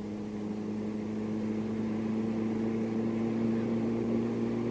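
Taxi engine running, heard from inside the cabin as a steady low drone that grows slightly louder.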